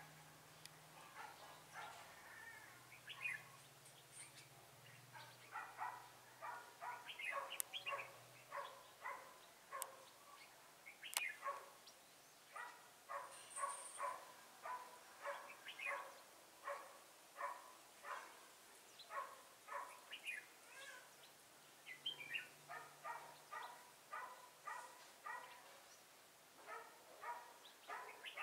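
An animal calling over and over in short, regularly spaced calls, about two a second.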